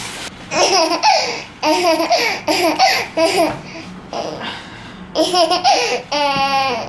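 Laughter in several short bursts, ending in a longer held vocal sound near the end.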